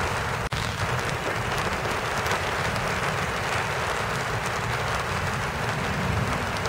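Steady rain falling in the rose garden, an even hiss with faint scattered drop ticks and a low rumble beneath it. The sound drops out for a split second about half a second in.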